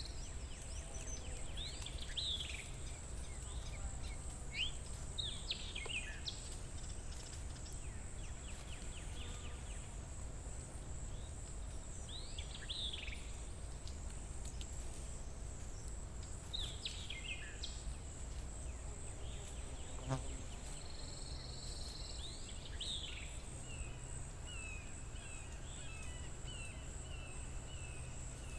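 Forest ambience: a steady high-pitched insect drone, with birds calling at intervals in short downward-sweeping calls and a low rumble underneath. Near the end a bird gives a run of quick repeated notes.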